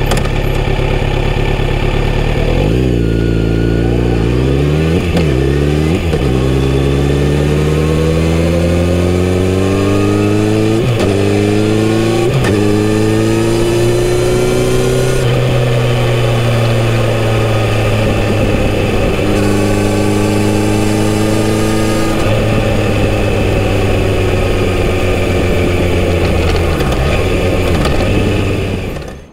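Kawasaki Z900RS inline-four on its stock exhaust idling, then pulling away. Its pitch climbs and drops back several times in quick upshifts over the first dozen seconds, holds steady at cruising speed, then falls as the bike slows.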